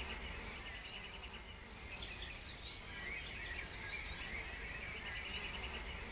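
Crickets chirping steadily in a high, even rhythm of about two chirps a second, over tape hiss.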